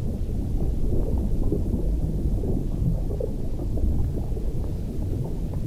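Muffled, steady low rumble with irregular bubbling, as heard underwater around a scuba diver: exhaled air bubbles and water noise picked up through an underwater camera housing.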